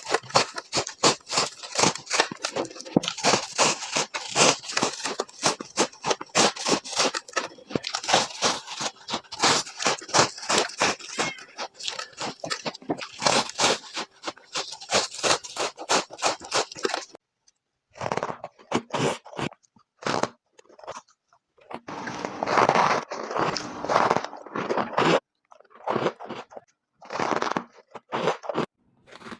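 Ice being crunched and chewed close to the microphone, sped up to double speed. Dense, rapid crunching for the first half gives way to shorter separate bursts of crunching with silent gaps between them.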